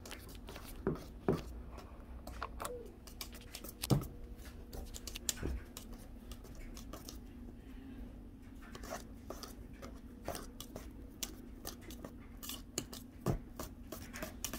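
Wire whisk clicking and scraping against a stainless steel mixing bowl while stirring thick pudding and whipped topping together: irregular metallic ticks, with a few louder knocks in the first half. A faint steady hum runs underneath.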